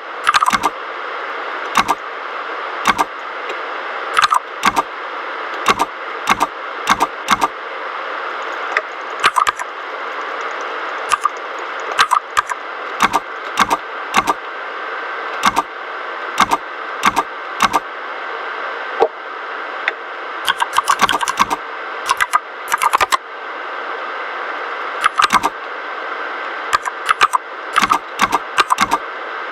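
Typing on a mechanical keyboard with red linear switches: irregular clacks of keys bottoming out, some single and some in quick runs, over a steady hiss.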